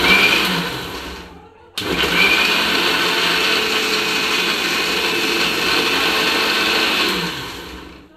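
Electric mixer grinder with a steel jar grinding grated coconut in hot water to make coconut milk. It gives a short burst that spins down, then starts again and runs steadily for about five seconds before winding down near the end.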